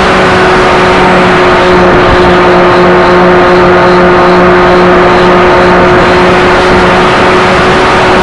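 Onboard sound of an RC model Partenavia in flight: its motor and propeller drone holds a steady pitch under heavy wind rush across the on-board microphone.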